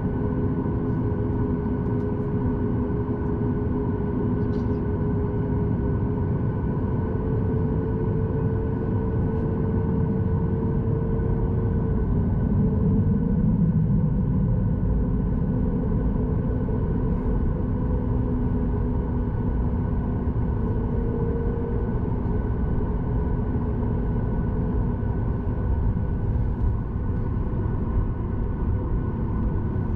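Cabin noise of a Boeing 737 MAX 8 heard from a window seat: a steady rumble from the running CFM LEAP-1B jet engines and airflow, with steady humming tones on top. The rumble swells slightly about halfway through, and one of the hum tones shifts in pitch.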